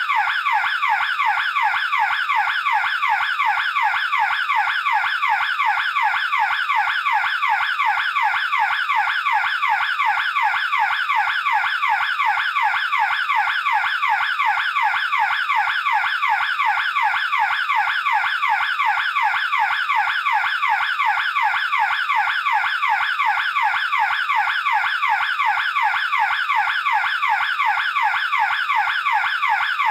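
Electronic burglar alarm siren sounding continuously: a rapid warble of sweeping tones that repeats several times a second at an even, unchanging level.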